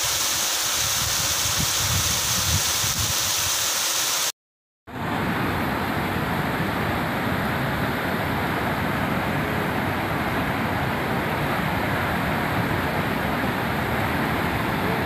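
Steady rushing noise of rain and running water. It cuts out for half a second about four seconds in and is followed by the heavier, even rush of a fast, flood-swollen river surging past.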